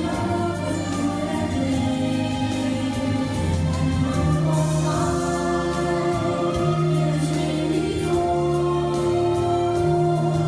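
Live worship music from a church band, with voices singing long held notes over a steady bass line.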